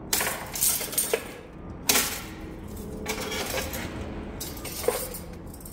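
Metal objects being handled, clinking and clanking in a handful of sharp knocks. The loudest comes about two seconds in and another near the end.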